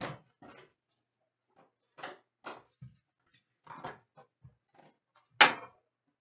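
A hockey card box being handled, opened and set down on a glass counter: a run of short taps, scrapes and knocks of cardboard, the loudest one about five and a half seconds in.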